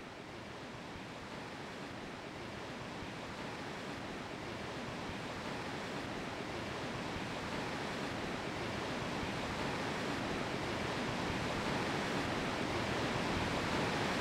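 Rushing water of the Barnafoss waterfall, a steady even roar that swells slowly and evenly louder.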